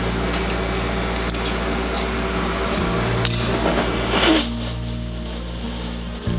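Gas torch flame hissing steadily as it heats the mild steel, with a few light metallic clinks of tongs on steel in the first half. Background music plays underneath.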